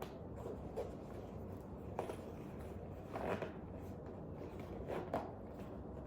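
Faint handling of a fabric backpack as it is being closed: four brief, soft rustles and scrapes spread through a quiet room.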